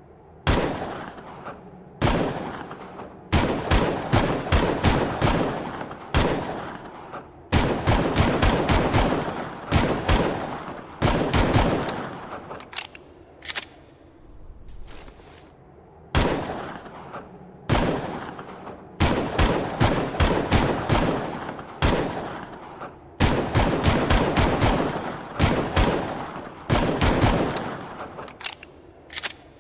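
Gunshots from an AMT Hardballer Longslide .45 pistol: single shots and quick strings of several shots in a row, each shot with an echoing tail.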